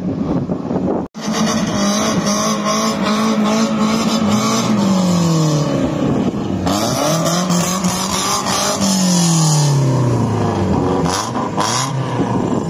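BMW E36 3 Series engine revving. It is held at high steady revs for a few seconds, then drops away in pitch, and this happens twice.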